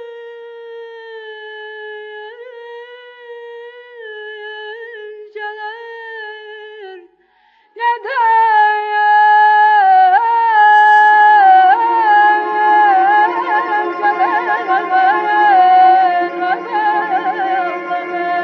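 Azerbaijani şikəstə folk song: a single melodic line of long held notes with vibrato and small ornamented turns. After a short break about seven seconds in, it comes back much louder and fuller, with quick trills over accompaniment.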